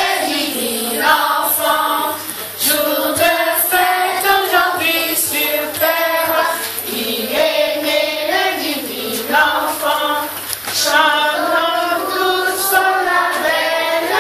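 Children's choir singing together with women's voices, unaccompanied, in a continuous song with phrases a second or two long.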